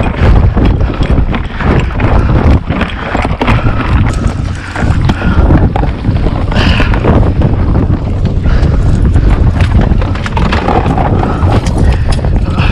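Quick footsteps on dry grass and dirt, with wind buffeting the microphone.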